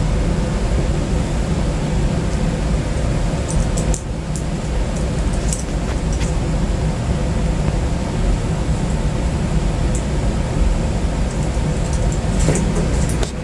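Steady low rumbling noise with a few light clicks, in two clusters about four to six seconds in and near the end.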